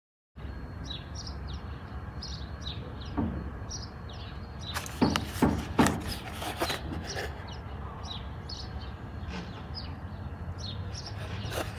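Birds chirping repeatedly in the background over a steady low rumble. About five to seven seconds in comes a short run of loud crackling clicks from a spark plug socket set's card-and-plastic blister pack being handled.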